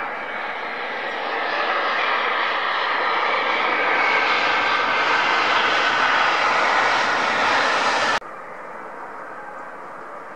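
Jet engines of a Boeing 737-300 running hard on the runway, swelling in loudness over several seconds. The sound cuts off abruptly about eight seconds in and gives way to the quieter, steady jet noise of a twin-engine airliner on approach.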